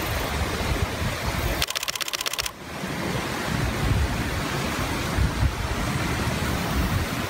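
Wind buffeting the microphone in low, uneven gusts over a steady outdoor hiss. About two seconds in, a rapid pulsing buzz sounds briefly and then stops.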